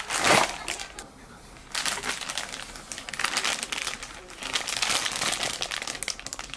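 Clear plastic packaging bag around a PVC figure and its base crinkling as hands handle it. The bag gives a loud rustle at the very start, goes briefly quiet about a second in, then crinkles steadily.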